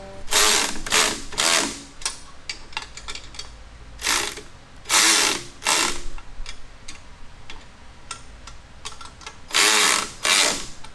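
Cordless power tool tightening the handlebar clamp bolts on a mini bike, run in short trigger pulls: three near the start, three around the middle and two near the end.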